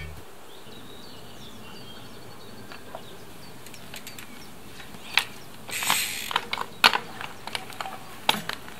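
Low steady background, then from about five seconds in a string of irregular sharp clicks and rattles with a short scuff from a YT Jeffsy 29 mountain bike as it is mounted and ridden off across grass.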